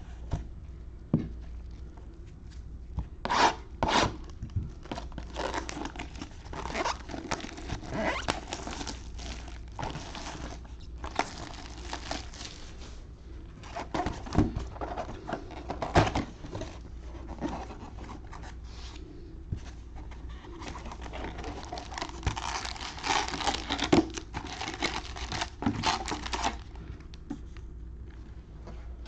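Sealed trading card boxes and packs being opened and handled: plastic wrapping torn and rustled, with cardboard tapping and knocking as boxes are opened and set down. The tearing and rustling is densest about twenty-two to twenty-six seconds in.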